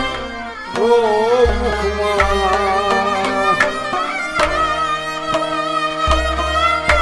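Instrumental passage of a Kashmiri Sufiyana ensemble with no singing. A bowed string instrument carries a sliding, wavering melody over held harmonium notes and a plucked rubab. A drum strikes a low beat about once a second.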